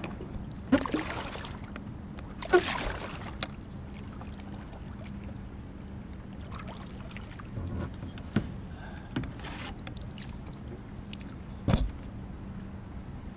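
Kayak paddling: the paddle stroking through the water and water lapping at the plastic hull. A few short, sharp paddle sounds stand out, about a second in, near three seconds, and twice more in the second half.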